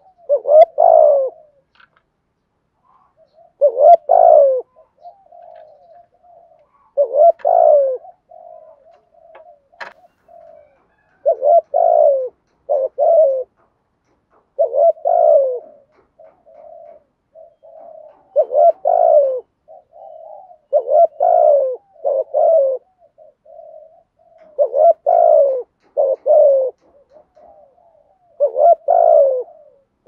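Spotted dove cooing close up, the rapid 'thúc gù' coo kept by bird-keepers to call in wild doves: a loud phrase of one to three deep coos every three to four seconds, with softer coos between.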